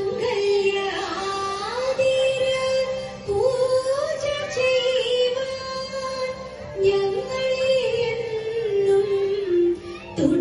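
A woman's voice singing a Thiruvathira song: a slow melody of long held notes joined by gliding ornaments.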